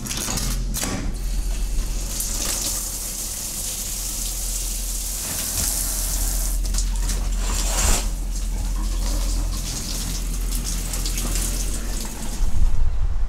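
Shower running: a steady hiss of water spraying down onto the stall floor, with a few clicks about a second in from the coin-operated shower box. Near the end the water sound stops and a low, uneven rumble takes over.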